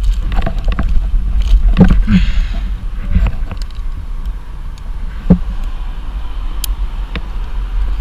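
Steady low rumble of wind on a helmet-mounted microphone, with scattered knocks and clicks of rope and metal rigging gear handled among monkey puzzle branches, and a brief scrape about two seconds in.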